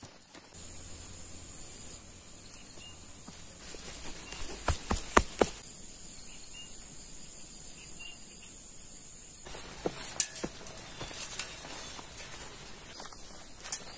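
Insects, crickets, shrilling in a steady high-pitched tone. A few sharp footfalls on stony dirt come in two clusters, about four to five seconds in and again around ten seconds in.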